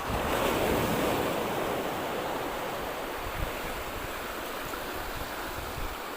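Sea waves washing onto a beach: a surge of surf that swells at the start and eases after a second or two into a steady wash, with some wind on the microphone.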